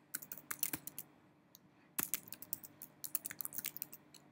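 Typing on a computer keyboard: rapid key clicks in two runs, one in the first second and another from about two seconds in, with a short pause between.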